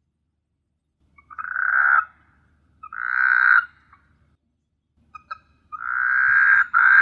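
A frog calling at night: three loud croaking calls, each swelling in loudness and about a second long, the third longer with a brief break near its end. A few short clicks come just before the third call.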